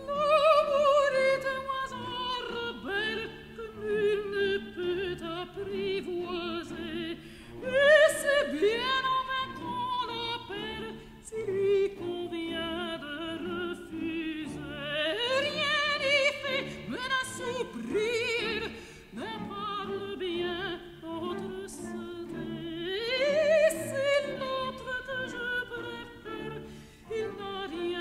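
Music: a high singing voice with strong vibrato, sung in long sweeping phrases over a low accompaniment. New phrases begin at the start and about 8, 15 and 23 seconds in.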